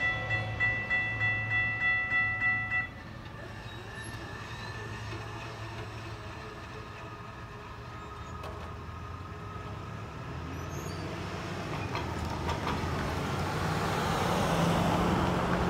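Railroad crossing's electronic warning bell ringing in quick strokes, about three a second, then stopping suddenly about three seconds in. After it, a steady rumble of road traffic that grows louder near the end as vehicles cross the tracks.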